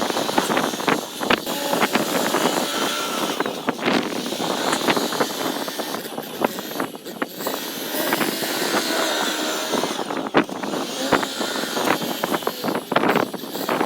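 Kubota tractor's diesel engine running under load while working the field, with frequent knocks and rattles from the implement.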